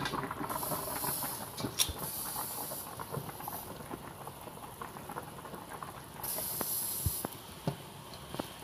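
Soy-sauce braising liquid bubbling and sizzling in a wok around a whole chicken: a steady hiss with scattered small pops. The hiss swells twice, near the start and again about two-thirds of the way through.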